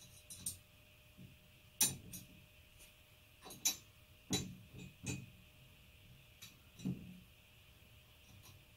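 Light metallic clicks of an Allen key turning the set screw in the hub of a drum sander's height-adjustment handwheel: half a dozen separate ticks at irregular intervals.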